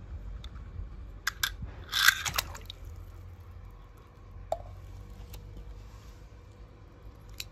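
A few faint, scattered clicks and a short crunching rustle about two seconds in, over a low steady hum.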